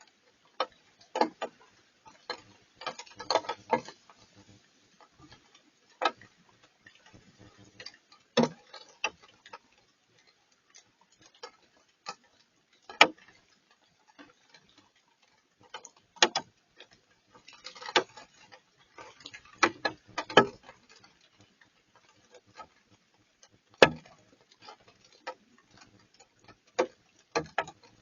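Rain dripping: single drops land as sharp taps at irregular intervals, some in quick clusters, with no steady hiss of falling rain.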